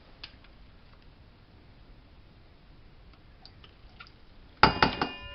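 A few faint clicks, then near the end a sudden loud metallic clatter with a ringing tone: a utensil knocking against a stainless steel mixing bowl.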